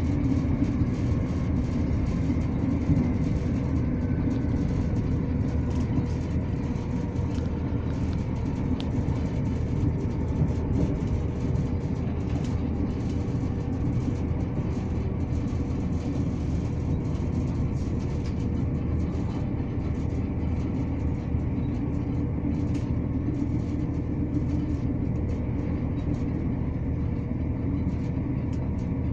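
Inside a ScotRail Class 170 Turbostar diesel multiple unit running at speed: a steady low rumble from wheels on the rails and the underfloor diesel engine. A faint steady hum and scattered light clicks sit over it.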